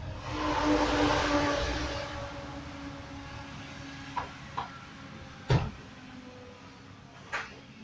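A motor vehicle passing by, its noise swelling over the first second or two and then fading while its hum falls slowly in pitch. A single sharp knock comes about five and a half seconds in.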